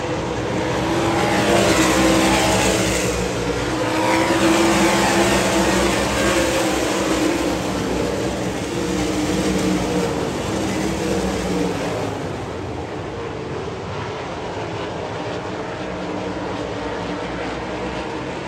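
A field of 358 winged sprint cars racing on a dirt oval, their V8 engines running hard together. Louder in the first several seconds as cars go by with falling pitch, then settling to a steadier, lower drone as the pack moves away.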